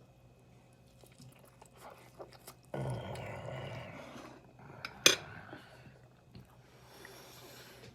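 A man chewing a big mouthful of meatloaf: soft wet mouth clicks, with a louder stretch of muffled eating noise and a low hum about three seconds in, and one sharp click about five seconds in.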